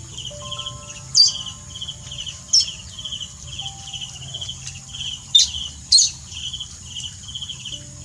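Insects chirping in a steady pulse about twice a second, with four sharp, falling bird chirps over them, two of them close together past the middle.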